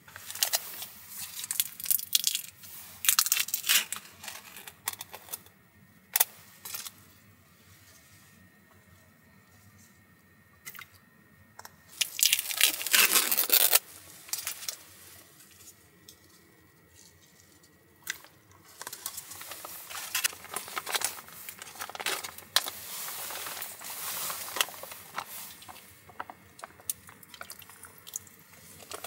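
Plastic food packaging being handled: the film lid of a chawanmushi cup and a soup pouch crinkling, peeling and tearing open. It comes in short crackly bursts with quiet gaps, with one louder tearing rush about halfway through and a longer stretch of crinkling later on.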